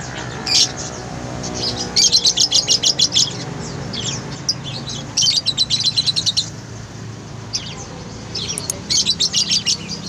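Caged lovebirds chirping: three runs of rapid, shrill chirps, each about a second long, with single chirps between them, over a steady low background hum.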